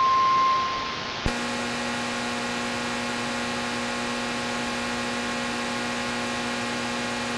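The long on-the-hour time-signal tone of Busan MBC's midnight signal plays on a portable AM radio and ends about a second in. A click follows as the station's 1161 kHz AM carrier goes off the air for good. After that the Tecsun PL-310ET on the now-empty frequency gives only a steady buzzing hum over hiss.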